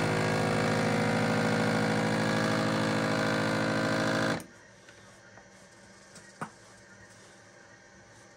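GameSaver Titanium vacuum sealer's pump running steadily as it draws the air out of a bag, then cutting off suddenly about four seconds in once the vacuum is reached. A faint click follows a couple of seconds later.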